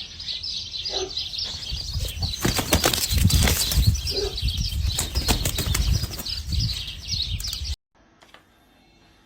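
Small birds chirping busily, with a flurry of wing flapping in the middle. The sound cuts off abruptly near the end.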